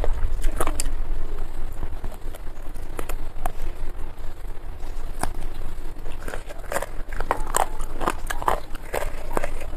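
Close-up chewing and mouth clicks of a person eating chicken biryani by hand. The clicks are sparse at first, then a denser run of short smacks comes in the second half.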